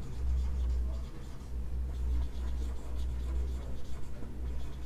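Whiteboard marker writing on a whiteboard: a run of short strokes of the felt tip, over a steady low hum.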